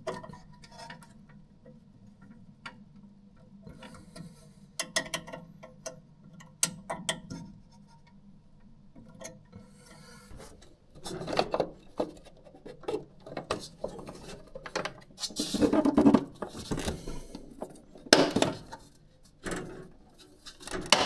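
Hand-work noise from fitting a xenon lamp into a cinema projector's lamphouse: scattered small metal clicks and clinks of tools and fittings, with rubbing and handling sounds that grow denser and louder in the second half.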